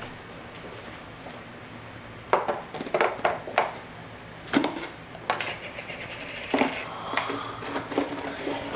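A cardboard Pringles can being handled: sharp clicks and knocks start about two seconds in as the top of the tube is worked open, then a denser rustle and clatter of chips as a hand reaches down inside the can.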